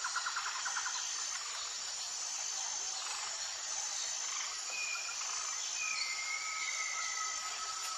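Insects trilling: a steady high, shrill buzz that pulses on and off, with a rapid chirping trill at the start and a faint drawn-out whistle later on.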